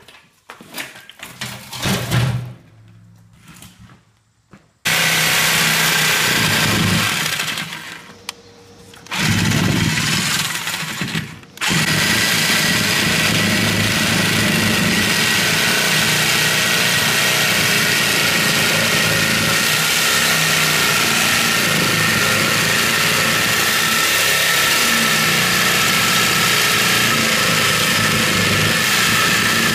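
A few knocks of metal being handled, then a handheld rotary power tool starts about five seconds in, cutting into the rusty steel bottom of a drum; it stops briefly twice, then runs steadily at a high, even whine.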